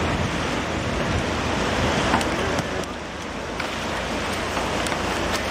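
Steady rushing of small surf breaking and washing up the beach, with wind, and a few light clicks about two to four seconds in.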